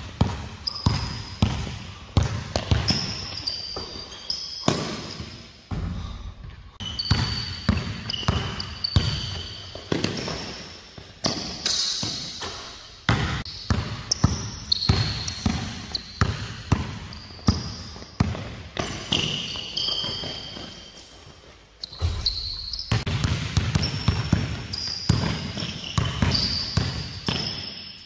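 Basketballs bouncing on an indoor court, with repeated sharp bounces that echo through the gym hall. Short high squeaks from sneakers on the court floor come between the bounces.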